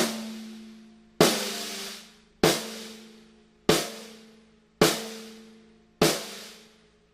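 Mapex Black Panther Machete 14x6.5 metal-shell snare drum, tuned low, struck on the batter head with single strokes about every 1.2 seconds, six times. Each hit has a crisp snare-wire crack and a low ringing tone that fades over about a second.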